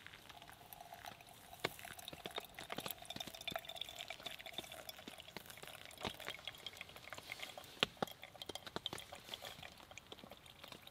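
Water poured in a thin stream over ground coffee in a paper filter, brewing pour-over coffee: a faint, steady trickle that stops about three-quarters of the way through, with scattered small ticks throughout.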